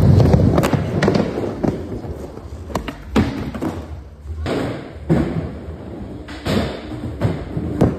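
Skateboard wheels rolling, loudest in the first second, broken by about ten sharp board clacks and thuds from tricks and landings.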